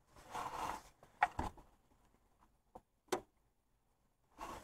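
Hand-tool work on a stuck, rusty belt tensioner bolt: a few sharp light clicks and knocks, the sharpest about three seconds in, between two short rustles.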